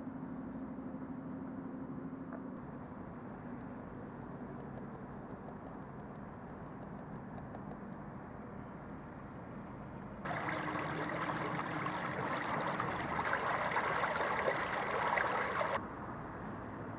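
Steady outdoor background rumble with a faint hum at first. About ten seconds in, a much louder rushing hiss starts abruptly, lasts about five seconds and cuts off just as suddenly.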